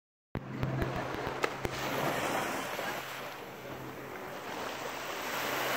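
Small waves washing onto a sandy beach, a soft hiss that swells and eases, over a steady low hum. A few sharp clicks come in the first second and a half.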